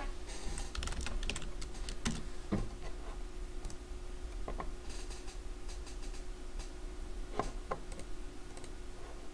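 Computer keyboard keys clicking now and then, over a steady low electrical hum.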